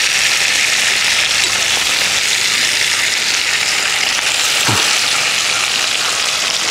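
Masala-coated mackerel sizzling steadily in hot coconut oil in a non-stick pan, just turned over to fry the second side.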